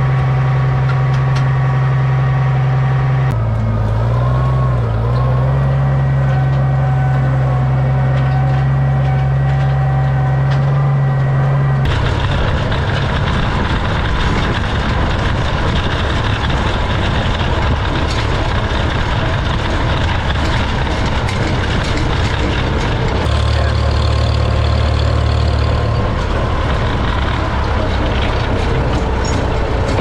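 Tractor engine idling at a steady pitch, with a brief wobble a few seconds in; about twelve seconds in it changes abruptly to a Farmall Super M tractor's engine running as the tractor drives along, a rougher, noisier sound.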